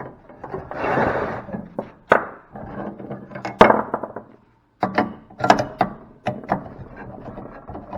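A hand tool scraping and knocking against the metal and plastic parts of a large electrical fuse holder being dismantled: a scraping rasp about a second in, then a string of sharp separate knocks and clinks.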